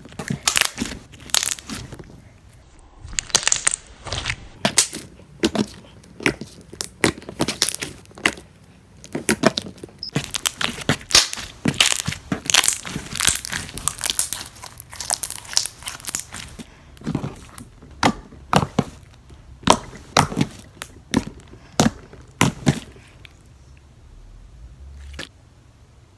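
Clear slime being squished and folded between the hands, making rapid, irregular clicks and pops. The clicking thins out and goes quieter near the end as the slime is pulled and stretched.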